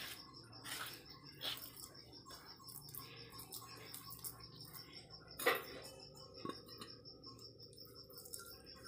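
Fingers scraping and gathering freshly ground chutney paste off a grooved stone grinding slab (sil), a faint irregular rubbing, with one sharp knock about five and a half seconds in.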